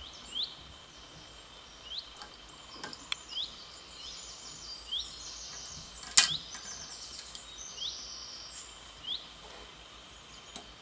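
A short rising chirp repeats about every second and a half over a faint steady high tone, with a flurry of higher chirps in the middle. Sharp clicks of plastic toy figures being handled come through, the loudest about six seconds in.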